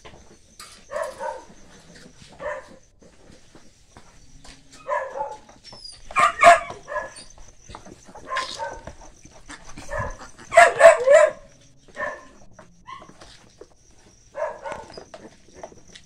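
Newborn piglets squealing in short bouts every second or two, loudest about six seconds in and again around eleven seconds in. A faint steady high-pitched whine runs underneath.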